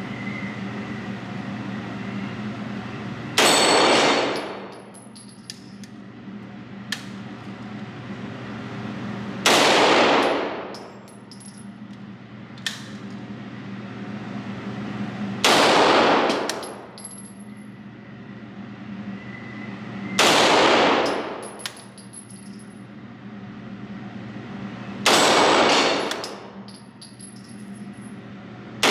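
Walther P38 9×19mm pistol fired in slow single shots, five in all about five to six seconds apart, each with an echoing tail in the indoor range, followed by short light metallic pings as steel targets are hit.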